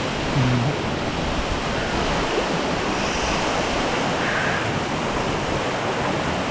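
Waterfall rushing steadily: a dense, even noise of falling water.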